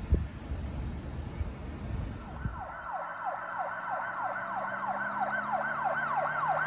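Wind buffeting the microphone with a thump near the start, then about two and a half seconds in the sound cuts to a police car siren in fast yelp mode, its pitch sweeping up and down about three times a second.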